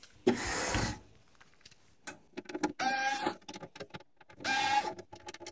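A brief scrape as the cassette deck is slid round on the workbench, then two short whirs of a cordless electric screwdriver, about three and four and a half seconds in, as it backs out the case screws.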